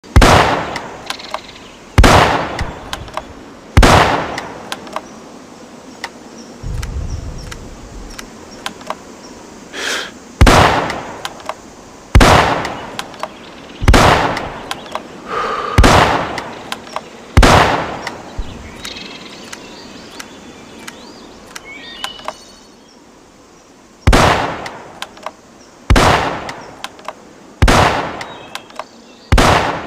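Springfield rifle firing single shots, about a dozen in all, mostly about two seconds apart, each sharp crack trailing off in an echo. Small clicks sound between shots, and the firing pauses for several seconds twice.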